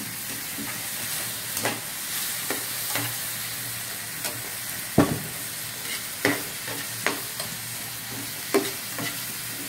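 Shrimp sizzling as they sauté in fish sauce in a hot pan, with a spatula knocking and scraping against the pan about once a second as they are stirred; the loudest knock comes about five seconds in.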